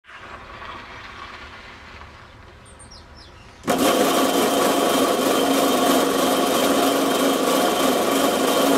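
Chain drive test rig with a ROLL-RING elastic chain tensioner, starting suddenly almost four seconds in and then running steadily: an even mechanical whir with a steady hum, the chain running over its sprockets with the ring rolling between the strands. Before it starts there is only faint room noise.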